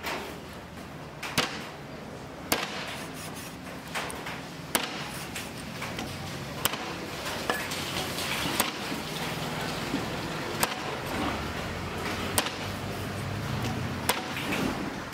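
Heavy cleaver chopping a raw duck into pieces on a round wooden chopping block: a sharp chop about every two seconds, with lighter knocks between.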